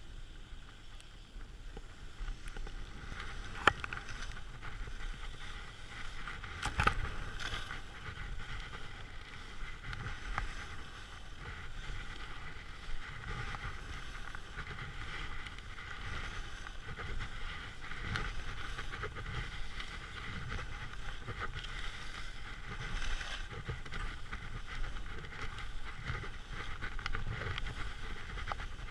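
Skis sliding and scraping over snow during a downhill run, a steady rushing hiss with wind rumbling on the microphone. Two sharp knocks stand out, about 4 and 7 seconds in.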